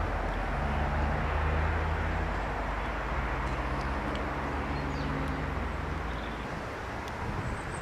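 A low engine drone, steady with slight shifts in pitch, fading out about six seconds in, over open-air background noise.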